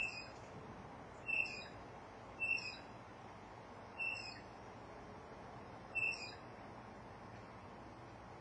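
Five short, high-pitched chirps at uneven intervals over about six seconds, above a faint steady hiss.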